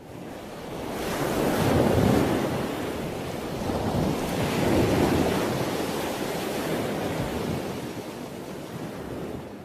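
Sea surf: waves rushing and washing, with a loud surge about two seconds in and another about five seconds in, then easing off.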